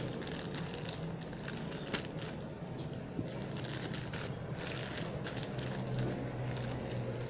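A delivery parcel being opened by hand: irregular crinkling and crackling of the packaging, with one sharper snap about two seconds in, over a steady low hum.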